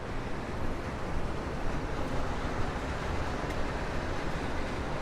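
Steady outdoor rushing noise with a heavy low rumble, stepping up slightly as it begins.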